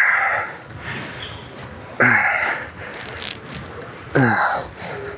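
A man exhaling forcefully with a short, falling grunt as he strains through reps, three times about two seconds apart.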